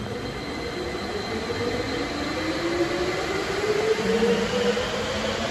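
Uijeongbu light rail train pulling out of the station, its motor whine rising steadily in pitch as it accelerates. A low steady hum joins about four seconds in.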